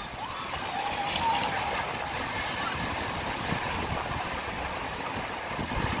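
Surf breaking and washing up a sandy beach in a rough, wind-driven sea: a steady rushing wash with wind rumbling on the microphone.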